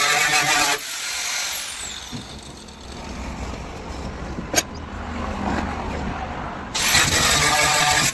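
A motor running loudly cuts off about a second in and winds down with a high, falling whine. A low hum and a single sharp click follow, then the motor starts up again with a rising whine near the end.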